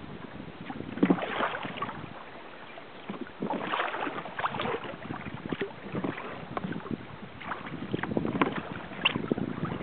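Water splashing and lapping against a sailing kayak's hull in irregular bursts every second or two, over a steady hiss of wind.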